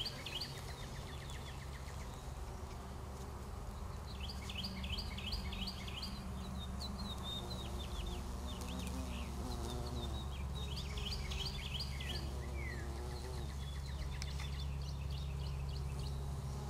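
Bumblebees buzzing among flowering blueberry bushes as a steady low hum. A songbird sings quick trilled phrases over it, repeated several times.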